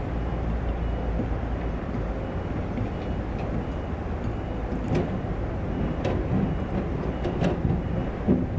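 Heavy-equipment diesel engine running steadily, with a few sharp metallic clanks about halfway through and near the end.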